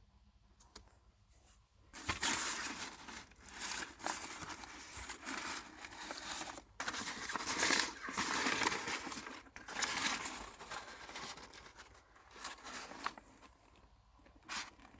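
Irregular rustling and crinkling of dry material, starting about two seconds in and coming in uneven spells that tail off near the end.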